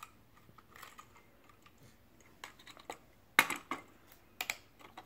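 Small hard plastic toys knocking and clicking on a wooden tabletop as they are handled and set down: a few faint ticks, then a sharp knock about three and a half seconds in, followed by a few lighter knocks.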